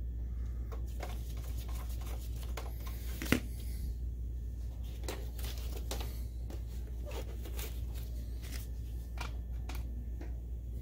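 Handling noise of a plastic projector case: scattered clicks and scrapes as a screwdriver works a screw and the projector is turned over on the bench, with one sharp knock a few seconds in. A steady low hum runs underneath.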